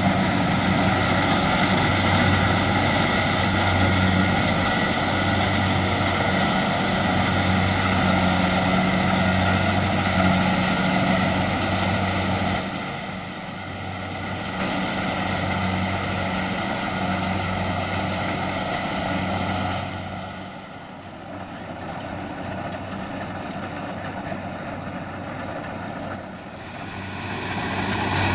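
Kubota DC-70 Plus combine harvester's diesel engine running steadily under load while harvesting rice, a low pulsing hum with machinery noise over it. It grows quieter for a couple of seconds near the middle and again for several seconds later, coming back up near the end.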